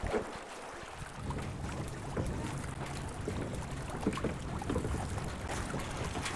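Lakeside water-and-wind ambience: water lapping with wind rumbling on the microphone. A low steady hum comes in about a second in.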